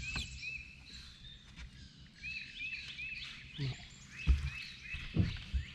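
A bird calling in runs of short, repeated chirps, several a second, with a few dull low thumps in the second half.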